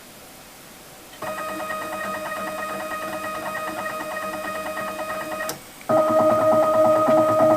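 CNC machine stepper motors running at a steady whining pitch as an axis is jogged: they start about a second in, stop briefly about five seconds in, then run again louder with a fast pulsing buzz.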